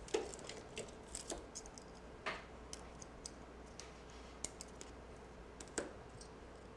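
Light, scattered clicks and taps of iPhone logic boards being handled and fitted into a metal test fixture, with a few sharper knocks just after the start, about two seconds in and near the end.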